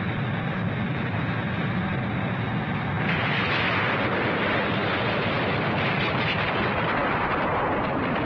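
Cartoon sound effect of a giant spaceship coming down out of control: a steady rumbling noise that turns hissier about three seconds in.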